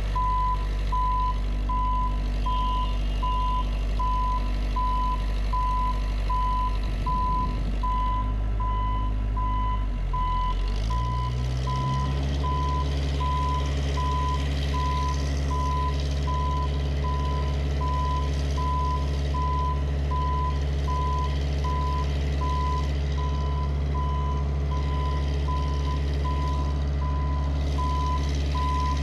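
JLG 150HAX boom lift's alarm beeping steadily at one high pitch over its running engine. About eleven seconds in, the engine revs up and holds the higher speed.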